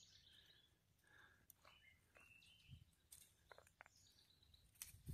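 Near silence, with a few faint, scattered bird chirps.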